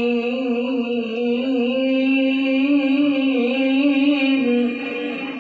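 A male Quran reciter's voice holding one long melismatic note in tilawah style, drawing out a syllable of the basmala. The pitch wavers through ornaments and rises slightly in the middle, then fades near the end.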